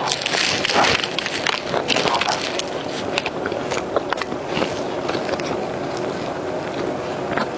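Close-miked wet chewing and mouth smacking of a soft cocoa cream puff filled with milk tea and tapioca pearls, with many small clicks and squelches.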